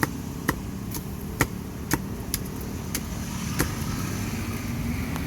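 Cleaver chopping roast pork on a chopping block: sharp strikes about twice a second that stop after about three and a half seconds, over a steady low rumble of street traffic.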